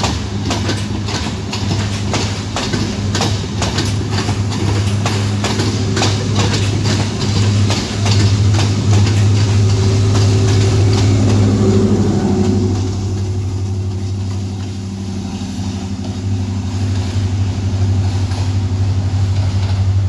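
Sri Lanka Railways Class S13 diesel multiple unit passing close by: its carriage wheels click in a regular clatter over the rail joints, over the steady low drone of its diesel engine. The clatter fades out about two-thirds of the way through, leaving the engine drone.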